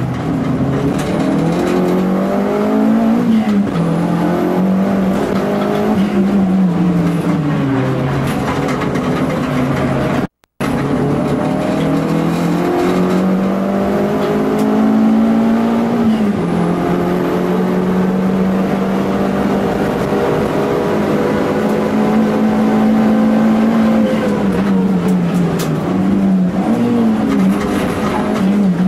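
Toyota Starlet EP82 GT Turbo's turbocharged four-cylinder engine heard from inside the cabin at racing pace, its revs rising and falling repeatedly, with a long stretch held steady near the end. The sound cuts out for a moment about ten seconds in.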